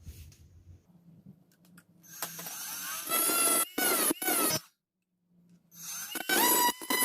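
Cordless drill motor run in short trigger pulls. About two seconds in it spins up with a rising whine and runs in several quick bursts. It stops briefly, then spins up again in more short bursts near the end.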